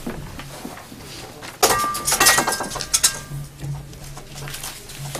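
Handling noise at a conference table picked up by a nearby microphone: papers being moved, with a loud burst of rustling and a few short clinks about a second and a half in, lasting about a second and a half, over a low steady hum.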